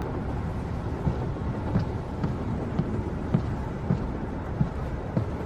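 Footsteps: dull thuds at a steady walking pace, a little under two a second, over a steady low rumble.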